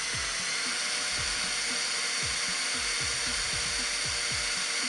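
Cordless drill running steadily as its bit works slowly through a fiberglass bodywork tab; the bit is dull, so it grinds rather than cuts quickly.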